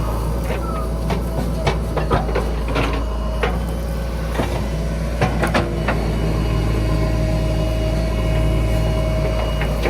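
Heavy diesel engine running steadily, with a scatter of short sharp knocks and clanks over the first six seconds or so.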